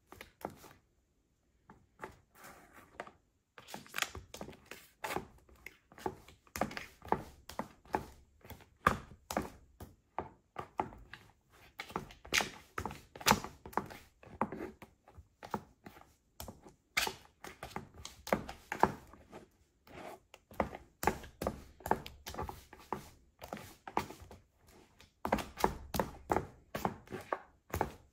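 Stiletto pumps stepping and trampling through spilled white cream and a squeezed plastic tube on a hard floor: a long run of sharp, irregular heel clicks and taps with wet squishing, broken by a short pause near the start.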